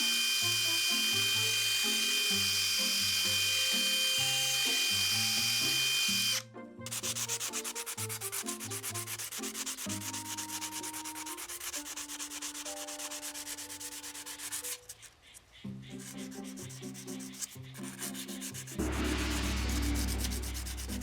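Abrasive power-tool work on stainless-steel sheet: a grinder runs with a steady whine for about six seconds, then gives way to a fast, rasping rub on the metal, and a grinding rumble comes back near the end.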